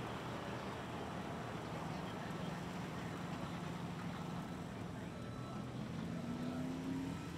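Mud bog truck's engine running steadily, revving up in pitch near the end.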